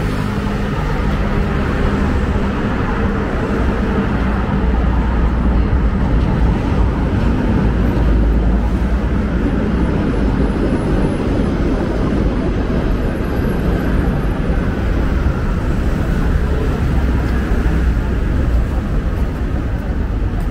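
Steady city street noise: a constant low rumble of road traffic passing along the avenue.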